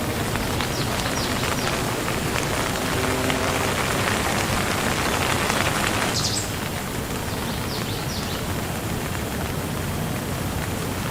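Steady rain falling, an even hiss of drops, becoming a little softer about six seconds in. A few short high chirps sound over it.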